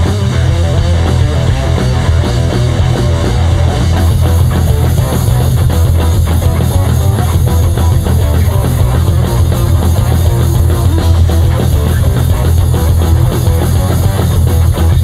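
A rock band playing live: loud, dense music with guitar and drums over a heavy low end. It turns brighter at the top about four seconds in.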